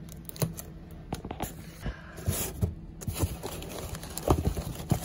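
Cardboard shipping box being torn open by hand: sharp clicks and knocks as the flap is pulled, a brief tearing rasp a little over two seconds in, then plastic wrap and paper packing crinkling as hands rummage inside.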